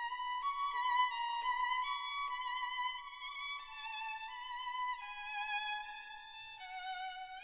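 Background music: a solo violin playing a slow melody with vibrato, its held notes stepping gradually downward.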